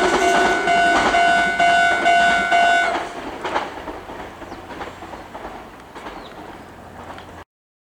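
Level-crossing warning bell ringing in repeated pulses while a Meitetsu 9100 series train passes over the crossing, wheels clacking over the rail joints. The bell stops about three seconds in, and the train's sound fades away before cutting off near the end.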